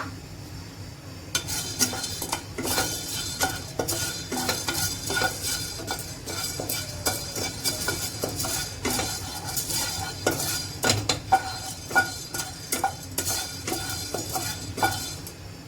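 Black peppercorns being dry-roasted in an empty pan and stirred. The repeated scraping and clicking of the stirring and of the peppercorns against the pan start about a second and a half in and go on irregularly until near the end.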